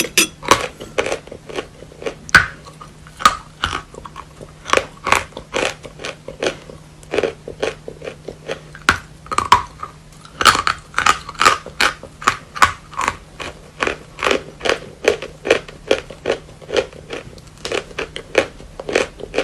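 Natural chalk being bitten and chewed close to the microphone: a quick, irregular run of sharp crunches.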